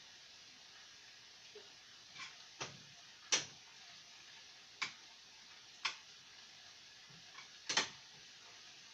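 A cooking utensil clinking against a frying pan of ground pork, beans and potatoes as it is stirred: about seven short, sharp clinks at uneven intervals, the loudest a little over three seconds in.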